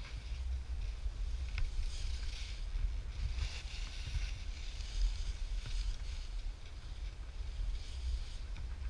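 Skis hissing over packed snow in swells that come and go with the turns, over a steady low rumble of wind buffeting the action camera's microphone.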